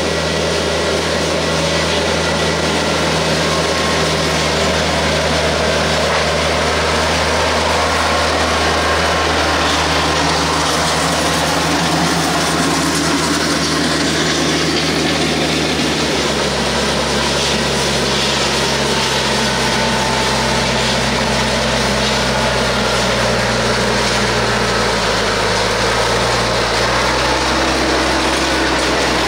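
A TYM compact tractor's diesel engine runs steadily under load while the land plane drags through gravel, with stones grinding and scraping under its blades. The engine note changes about halfway through.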